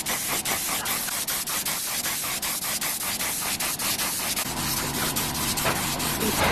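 Quick back-and-forth rubbing strokes on a surface by hand, about five a second. The strokes turn less regular in the last couple of seconds.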